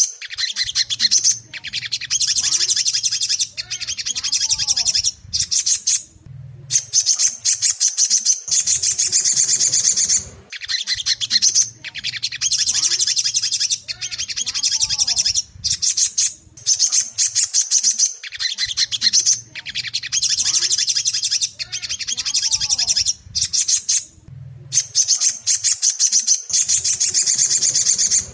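Ruby-cheeked sunbird (sogon) calling in rapid, high, chattering phrases a few seconds long, each broken off by a short pause and then taken up again.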